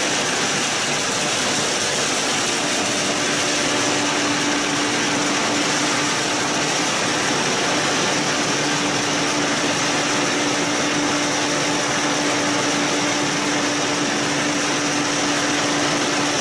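Feed pellet line machinery running: a steady, loud mechanical drone with a constant hum and a high hiss, from the line's electric motors and pellet mill at work.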